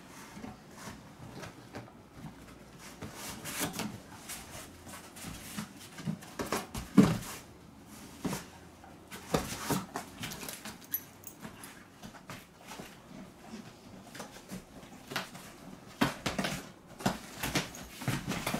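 A dog pawing and digging at the inside of a cardboard box, scratching and rustling the cardboard and torn packing paper in irregular bursts. A sharp knock against the box comes about seven seconds in.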